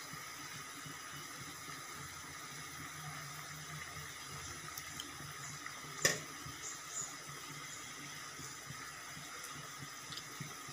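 Thick fish curry bubbling faintly in an aluminium pot as a ladle stirs it, with one sharp clink of the ladle against the pot about six seconds in.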